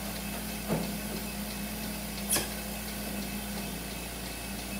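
Simple Pulse goat milking machine running: its vacuum pump gives a steady hum, with two short sharp clicks about a second and a half apart from the pulsator and inflations.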